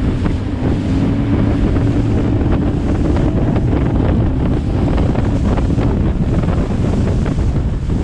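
Steady wind buffeting the microphone, a heavy low rumble over the sound of open water around the boat.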